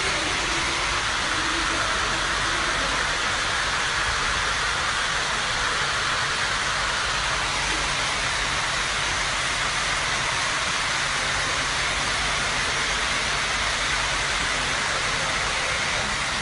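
Steady rushing of floodwater flowing through a flooded metro station, an even hiss with no breaks.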